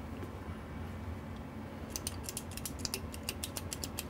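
Rapid series of sharp clicks from a hand working the front-panel switches and controls of a Texas Star DX500 CB linear amplifier, with about a dozen coming close together in the second half, over a faint steady hum.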